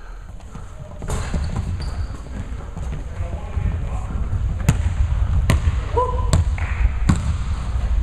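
Basketball bouncing on a hardwood gym floor: four sharp bounces about a second apart in the second half, with a short sneaker squeak among them as players run up the court.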